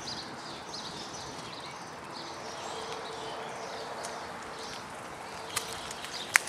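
Outdoor ambience: steady background noise with many faint high chirps, and a few sharp taps near the end.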